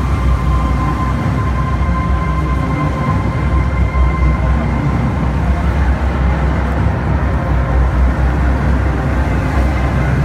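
Loud show soundtrack from outdoor loudspeakers, a dark droning piece with held tones over a heavy, steady low rumble, muffled and boomy on a phone microphone.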